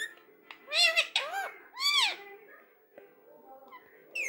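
Rose-ringed parakeet (Indian ringneck) calling: three drawn-out calls that rise and fall in pitch, one after another about a second in, then a shorter call near the end.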